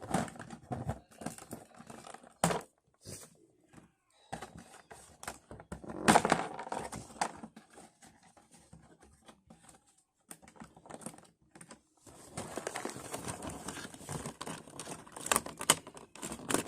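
Plastic toy packaging being cut and pulled open: irregular crinkling and rustling with sharp clicks, louder about two and a half and six seconds in, quieter in the middle, then busy crinkling again near the end.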